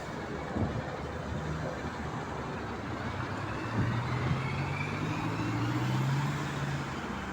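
MAZ 206 city bus engine running with road noise, the engine note growing louder and rising slightly for a couple of seconds about four seconds in.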